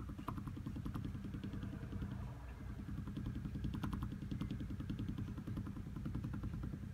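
Sliding window rattling fast and steadily in its frame over a low drone, shaken by vibration from a large fishing boat.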